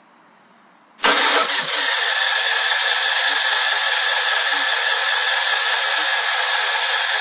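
Generac standby generator's starter cranking its overhead-valve engine, a loud, steady noise that starts suddenly about a second in and does not settle into running. This is the repeated failed cranking behind the overcrank and RPM sense loss faults, which a faulty starter turned out to cause.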